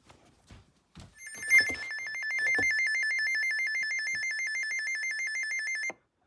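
Electronic two-tone warbling alert tone: a high tone rapidly switching back and forth between two pitches, about ten times a second, for about five seconds, then cutting off suddenly. It is the attention signal heralding a new severe thunderstorm warning.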